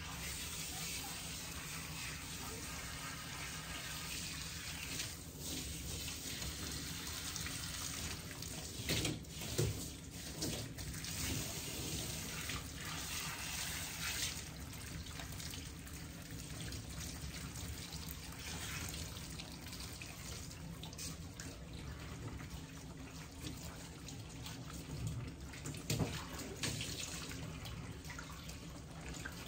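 Water running from a grooming hose and splashing over a lathered dog's coat into a stainless-steel tub as the shampoo is rinsed out. The flow is steady, with a few brief louder moments, about a third of the way in and near the end.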